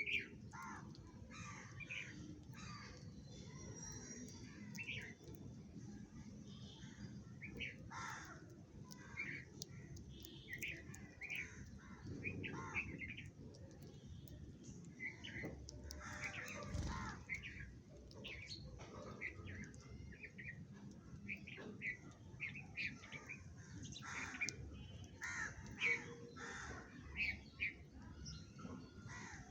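A group of sparrows chirping: many short, harsh chirps overlapping in an irregular chatter.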